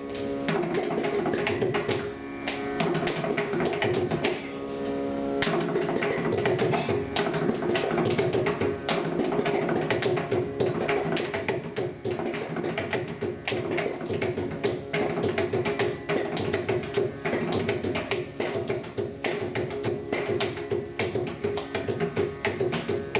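Mridangam drumming in a Carnatic performance: a fast, dense run of strokes on the two-headed barrel drum, over steady held melodic notes.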